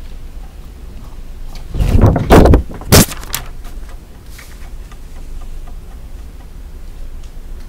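Sheets of paper being slid across a desk by hand: a loud scraping shuffle lasting about a second, then a single sharp knock just after.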